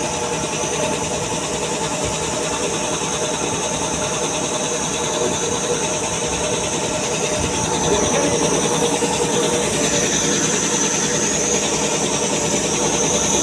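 Puma 5 HP air compressor running steadily on a test run after repair with new piston rings, getting a little louder about eight seconds in.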